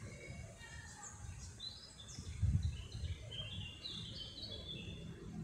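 Small birds chirping in a quick series of short high notes, over a low rumble with a louder low thump about two and a half seconds in.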